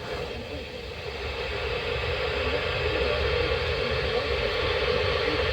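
Steady radio static from a weather radio receiver: a loud, even hiss with a strong lower-middle band. It starts suddenly, grows slightly louder and cuts off abruptly near the end.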